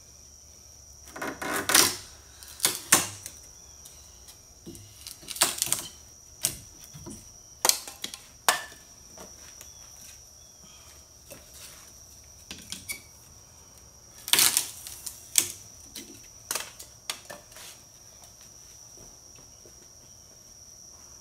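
Homemade wall-mounted kindling splitter being worked: a series of sharp knocks and cracks of steel on wood as pieces of kindling are split and handled, in three loose clusters, with a faint steady high whine underneath.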